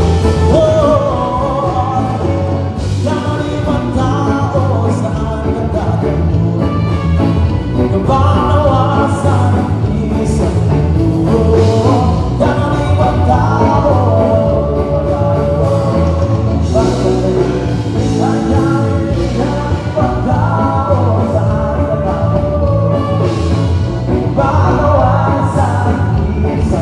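Live band playing a rock song during a sound check: a singer over electric guitar, bass and drum kit, loud and continuous.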